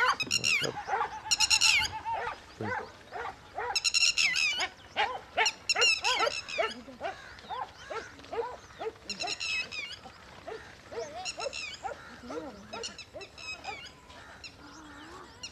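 Many short barks and yelps from dogs, coming in a rapid uneven run, with bursts of harsh, fast-pulsed bird chatter high above them; the calling thins out near the end.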